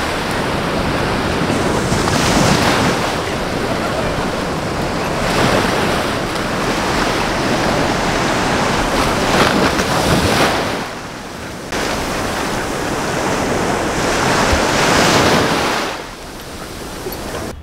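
Sea surf breaking and washing up a sandy beach, swelling loudest every few seconds, with wind buffeting the microphone.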